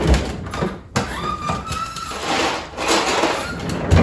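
Freezer door and drawer being handled: several knocks, a brief squeak and a sliding, rustling noise in between.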